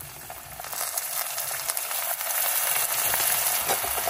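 Fried onions and chillies sizzling in hot oil in a pan, with the chicken gravy masala being sautéed in. The sizzle swells and grows louder about a second in.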